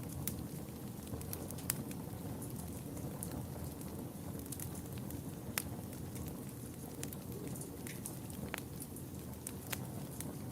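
Fire in a fireplace crackling: a steady low rush of flames with scattered sharp pops and snaps, one louder pop about halfway through.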